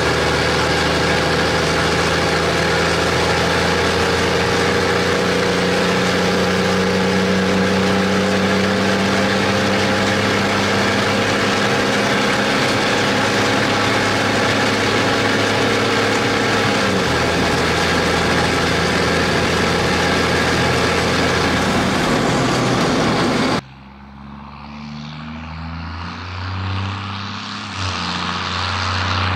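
Straight-piped Cummins 6CTA 8.3 turbo-diesel with a P-pump and HX40 turbo, pulling steadily under a water-tank load and heard from inside the cab as a loud steady drone; the engine note changes about seventeen seconds in. Near the end it is heard from outside instead, much quieter at first and growing louder as the truck approaches.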